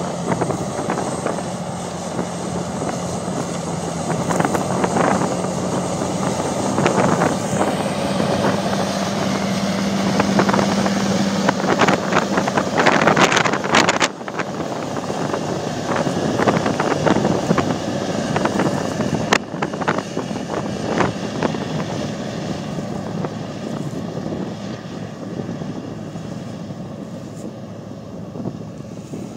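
Large articulated tractor's turbo diesel engine working under load pulling a tillage implement: a steady engine drone, with wind gusting on the microphone. The level drops abruptly about 14 seconds in.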